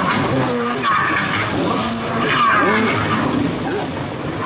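Stand-up jet ski engine revving in repeated surges while the craft flips and spins, with water spray hissing and splashing.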